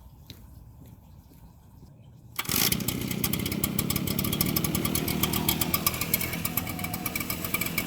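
Gas leaf blower engine starting abruptly about two and a half seconds in and then running at high speed with a fast, dense ticking; before that, only a few faint clicks.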